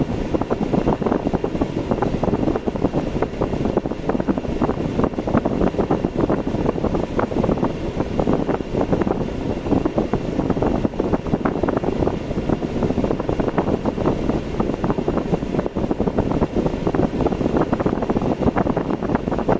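Steady driving noise from a moving car: tyre and road rumble with wind buffeting and crackling on the microphone.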